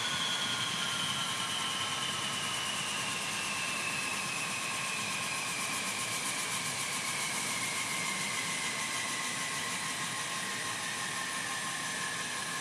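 Four Allison T56 turboprop engines of a CC-130H Hercules running on the ground, a steady propeller and turbine drone with a high whine that slowly falls in pitch.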